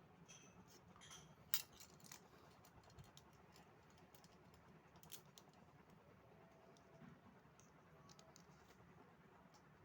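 Near silence with a few faint, scattered clicks and taps, the sharpest about a second and a half in.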